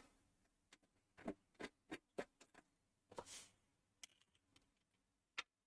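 Faint, scattered light clicks and taps as the case of a Dell Inspiron 560 desktop tower is worked open by hand, with a brief scraping sound about three seconds in.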